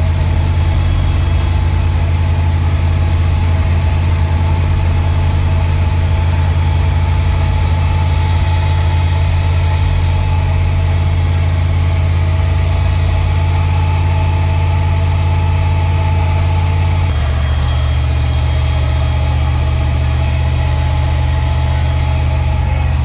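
A bank of 18-inch car audio subwoofers playing a loud, sustained deep bass note, which steps to a different low note about 17 seconds in.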